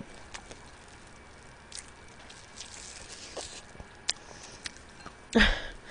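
Quiet mouth sounds of a person eating steamed blue crab: soft wet clicks, sucking and chewing as she works meat out of the shell. Near the end there is a short, louder burst with a brief voiced sound.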